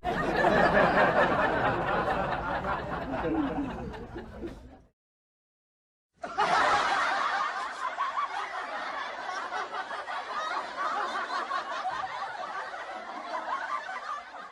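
Recorded laughter sound effects, two separate clips. The first fades out about five seconds in, and after a second or so of dead silence a second laugh starts and fades out near the end.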